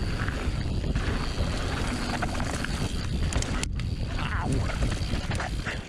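Mountain bike riding fast down a dirt trail: tyres rumbling over the rough ground with short rattles and knocks from the bike, and wind buffeting the camera microphone.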